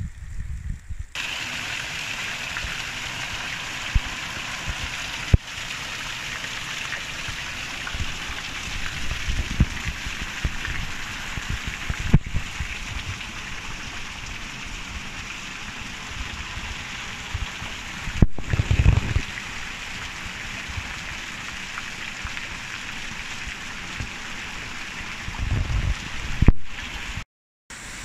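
Mountain waterfall rushing: a steady hiss of falling water, with a few low rumbles of wind buffeting the microphone and a brief break near the end.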